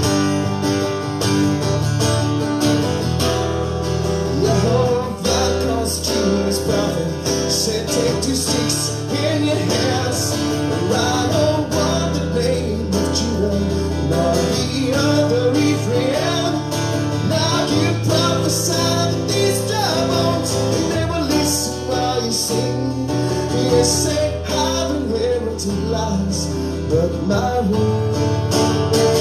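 Acoustic guitar strummed and picked in a steady instrumental passage of a worship song, with no sung words.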